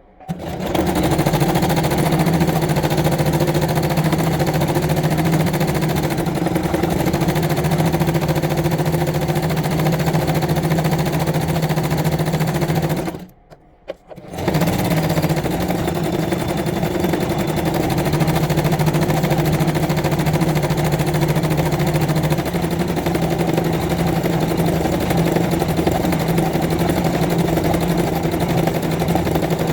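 Janome domestic sewing machine running steadily, sewing straight stitch to fill embroidery petals. It stops for about a second and a half around the middle, then starts again.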